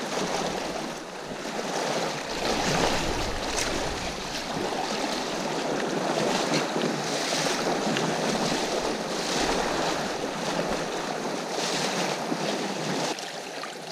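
Fast river current rushing over a shallow stony bed, with wind buffeting the microphone through most of the middle stretch.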